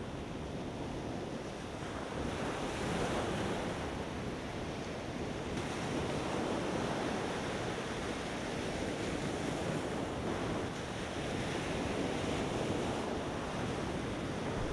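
Ocean surf washing steadily, a continuous rushing noise that swells and eases gently, with wind on the microphone.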